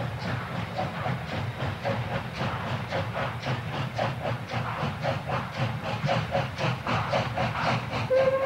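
Steam locomotive working a train, its exhaust chuffing in a quick, even rhythm over the low rumble of the train. Near the end its whistle starts, one steady note.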